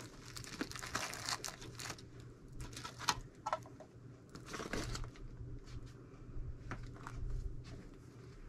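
Hands rummaging through a box of rickrack trim: irregular rustling and crinkling with scattered small knocks as pieces are picked up and moved.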